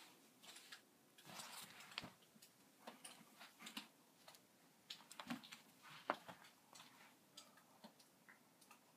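Faint, irregular taps, clicks and short rustles of a cat going after a moth, with the sharpest click about six seconds in.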